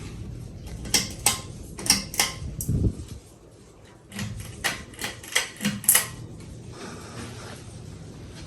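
A series of sharp mechanical clicks and knocks, about ten in two quick clusters, over a low hum.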